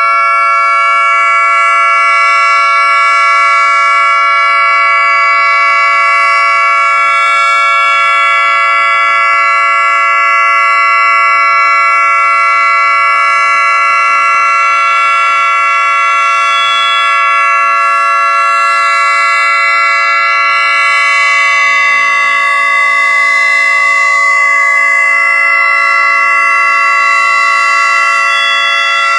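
Federal Signal 2T22 dual-tone outdoor warning siren sounding its steady Alert signal: a loud, held chord of tones at constant pitch, with no rise or fall.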